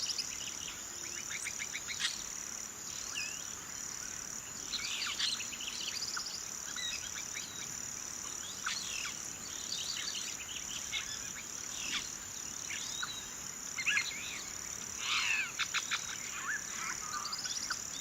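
Several birds chirping and trilling in quick short phrases over a steady, high-pitched insect drone, with the birdsong busiest near the end.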